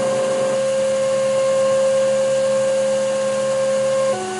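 Emco Turn 220 P CNC lathe running with a steady motor whine over a hiss; near the end the whine breaks, shifts pitch and drops away as the machine winds down.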